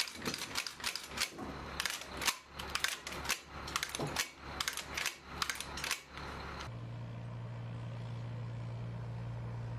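Sharp metallic clicks and clacks from an M240B machine gun being handled and worked by hand, dozens of them in quick irregular succession. They stop abruptly about two-thirds of the way in, and a steady low hum follows.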